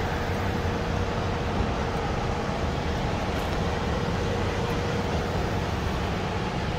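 Yamaha Tracer 900 GT's three-cylinder engine running steadily while the motorcycle is under way, with a constant rumble and wind rush on the microphone.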